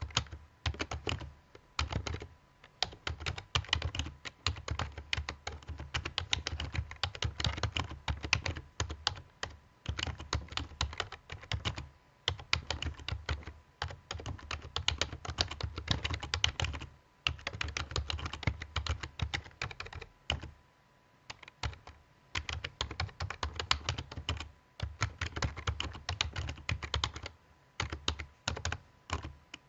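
Laptop keyboard being typed on: quick runs of key clicks broken by short pauses.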